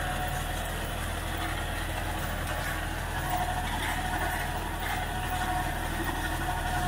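New Holland 3630 Special Edition tractor's diesel engine running steadily under load while pulling a Jagatjit super seeder through the field, the seeder working the soil behind it.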